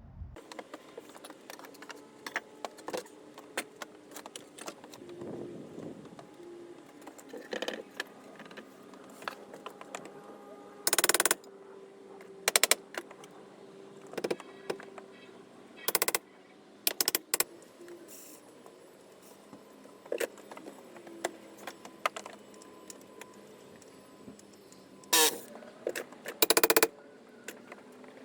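Tools and metal hardware being handled: scattered light clinks and ticks, broken by several short, loud clanks spread through, two of them close together near the end.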